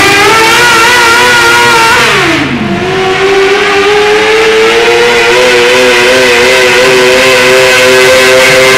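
Modified garden pulling tractor engines running at full throttle while dragging a weight-transfer sled. About two seconds in, one engine's note falls away sharply. Then another tractor's engine runs loud and steady at high revs, its pitch creeping slowly up as it pulls.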